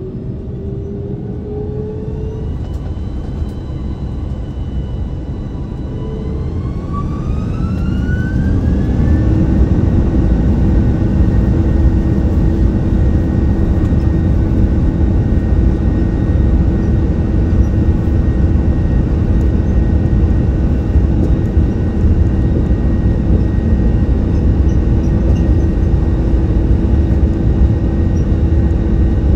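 Airliner jet engines heard from inside the cabin spooling up to takeoff thrust: their whine rises in pitch over the first several seconds, then holds steady over loud rushing noise and rumble as the plane rolls down the runway.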